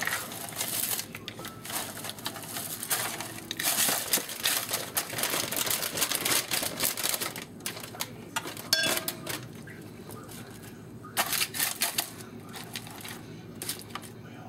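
Dry egg noodles rustling and crackling as a spatula pushes them around a roasting pan among turkey wings, in irregular scratchy bursts that thin out over the last few seconds.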